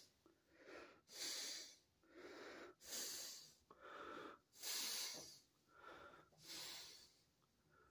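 A person breathing heavily and quickly, faint, about one breath a second, each breath a short hissy rush of air.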